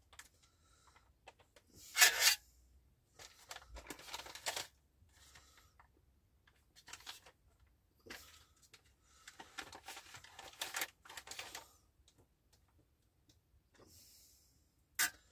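Foil-laminate MRE retort pouch crinkling and rustling in irregular bursts as it is squeezed and worked to empty the heated entrée onto a metal tray, the loudest burst about two seconds in, with a short sharp click near the end.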